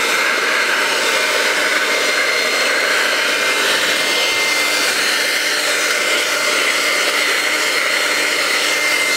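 Handheld hair dryer running steadily, a loud rush of blown air with a constant high whine from its motor, held close to plastic shrink wrap to heat it.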